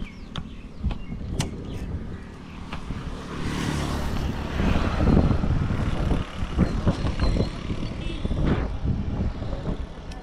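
Motor vehicles running close by: a low, steady engine hum, with a vehicle passing close, swelling loudest about four to six seconds in and then fading, plus a few short clicks and knocks.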